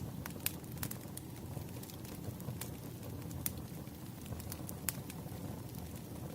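Campfire crackling: a steady low rumble of burning wood with sharp, irregular pops scattered through it, one of the strongest at the very start.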